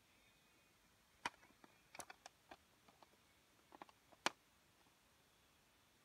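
A scattered series of sharp plastic clicks and taps from LEGO pieces being handled, about a dozen over three seconds, the loudest one near the end.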